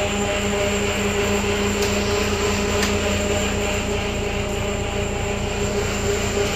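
Ferry boat's engine running steadily: a constant drone with a steady hum and a thin high whine over it.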